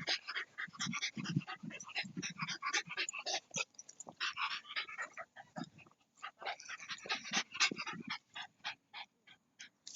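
Shiba Inu panting rapidly, a quick run of short breaths with brief pauses.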